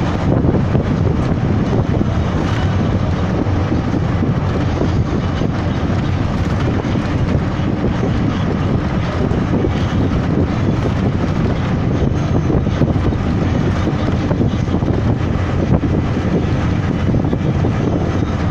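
Steady drone of a moving bus heard from inside: engine, tyre and wind noise blended into one even rumble, with no clear changes.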